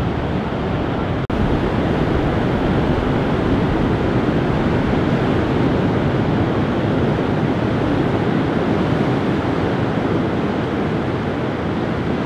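Steady wash of surf breaking on a beach, mixed with wind buffeting the microphone, with a brief dropout about a second in.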